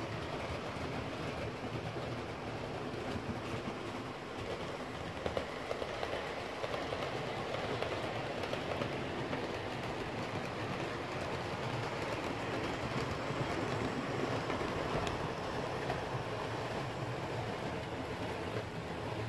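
Model trains running on the layout's track: a steady rumble and whirr of wheels and motors, with scattered clicks.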